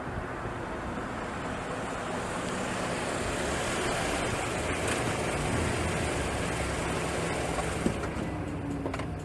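Steady rushing noise of a car on the road, with wind buffeting the microphone, swelling slightly midway. A single sharp click comes about eight seconds in.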